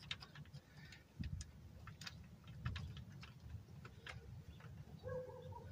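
Faint, scattered light metallic clicks and ticks as small bolts are threaded by hand into a timing chain tensioner on a GM 2.2L Ecotec engine, over a low hum.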